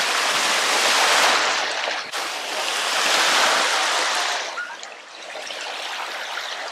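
Small waves breaking and washing up onto a sandy shore, the wash swelling and fading twice.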